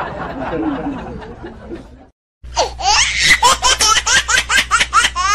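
High-pitched laughter: a rapid run of ha-ha bursts, about five or six a second, that starts after a brief silent break about two seconds in.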